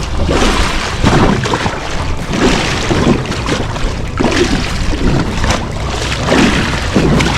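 Wind buffeting the microphone and water slapping against the hull of a small boat at sea, in irregular surges about once a second, over a low steady hum.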